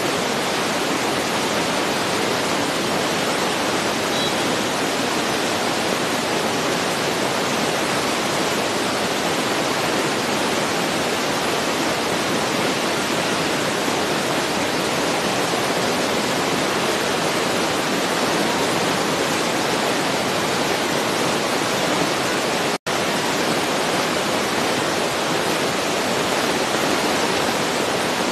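A steady, even hiss with no change in level or pitch, cutting out completely for a split second about 23 seconds in.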